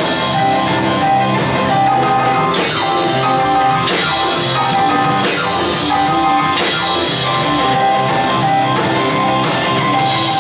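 Live rock and roll band playing an instrumental passage: electric bass, drum kit with a steady beat, keyboards and held lead notes, with no vocals.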